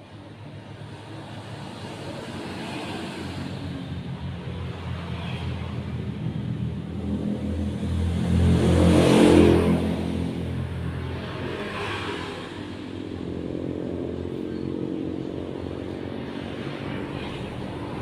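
Engine of a passing motor vehicle, growing louder to a peak about halfway through and then fading, with engine noise rising again toward the end.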